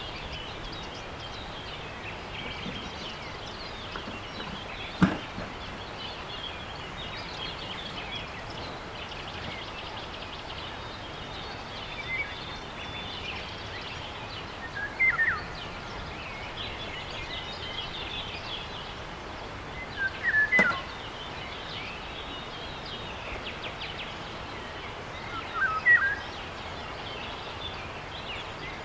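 Outdoor nature ambience: a steady background hiss with small birds chirping and twittering throughout. Louder short bird calls come four times, about every five seconds, and there is a single sharp click about five seconds in.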